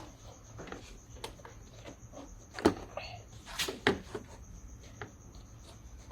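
Scattered clicks and knocks of parts being handled and fitted back on in a car's engine bay, with a sharp knock about halfway through and a quick cluster of knocks just after.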